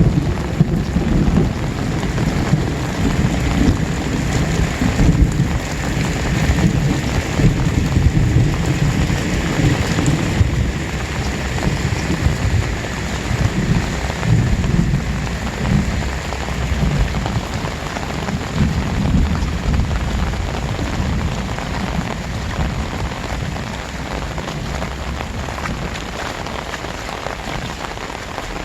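Very heavy rain pouring down, a dense steady hiss over a strong, uneven low rumble that eases a little over the last several seconds.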